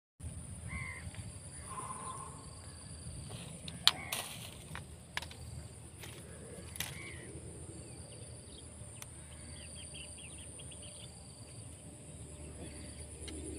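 Outdoor ambience: a steady low rumble and a steady high-pitched buzz, with a few sharp clicks from fishing tackle being handled, the loudest about four seconds in.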